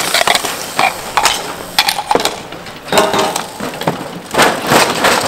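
Hardcourt bike polo play: an irregular string of sharp clacks and knocks from mallets hitting the ball, one another and the asphalt, over a noisy background.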